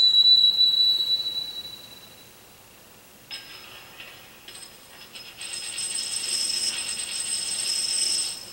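Sound effect of a coin: a bright ring that fades over the first two seconds, then a coin spinning on a hard floor, a metallic rattling ring that grows louder as it spins down and stops suddenly near the end.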